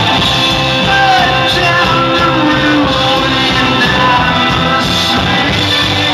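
Rock band playing with a male singer's voice sliding between held notes over guitar and drums.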